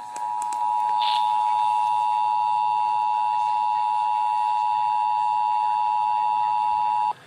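Emergency Alert System attention signal: the steady two-tone alert (853 and 960 Hz together) coming over radio receivers. It grows louder within the first second, a fainter higher tone joins about a second in, and it cuts off suddenly near the end.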